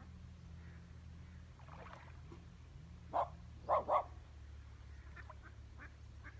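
A dog barking three times in quick succession about three seconds in, over a steady low background hum.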